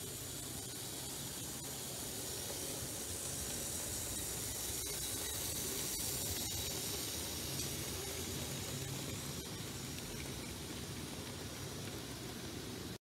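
Z-scale model train, a small steam locomotive with a string of covered goods wagons, running past: a faint steady hiss and whir of the little motor and the wheels on the rails that swells as the train comes closest about halfway through and fades again, with occasional light clicks.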